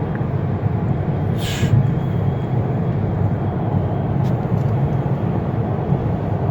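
Steady low road rumble of a moving car heard from inside the cabin, engine and tyres on the highway, with a short hiss about a second and a half in.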